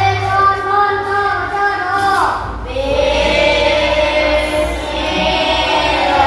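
A group of children singing together in chorus, holding long sung notes.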